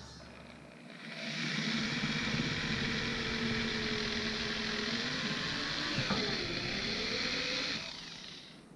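An electric woodworking power tool runs steadily for about seven seconds, starting about a second in and cutting off near the end; its pitch dips briefly about six seconds in.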